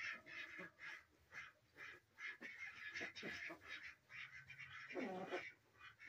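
Ducks quacking in short, repeated calls, several a second, with one lower, longer call about five seconds in.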